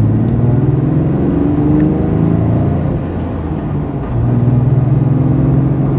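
2008 Toyota FJ Cruiser's 4.0 L V6 engine, heard from inside the cabin, accelerating as the truck pulls away from a stop on its newly installed Exedy ceramic clutch. The engine note rises, eases off about four seconds in, then pulls again.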